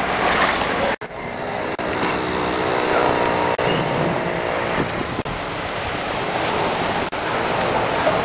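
Vehicles driving through a flooded street: a truck's engine running and tyres swishing through floodwater, with a break about a second in.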